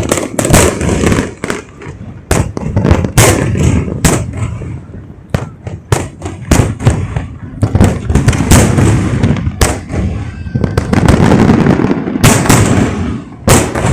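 Aerial fireworks bursting at close range: a rapid, uneven string of loud bangs, some in quick clusters, with crackling between them.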